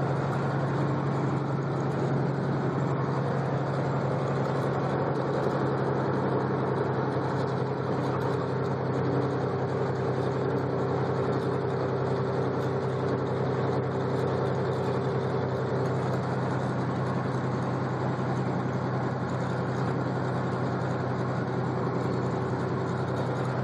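Steady engine drone and tyre noise heard inside the cabin of a vehicle driving along at a constant speed, with a low hum that holds one pitch.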